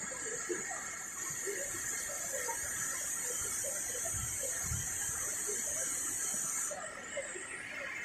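Rushing water of a mountain waterfall and rocky stream, with a steady high-pitched buzz over it that cuts off suddenly about seven seconds in.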